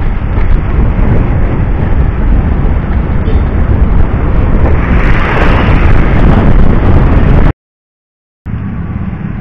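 Loud wind buffeting on the microphone of a moving road bike, a dense low rumble that cuts off abruptly about seven and a half seconds in. After a second of silence a quieter, steady background noise starts.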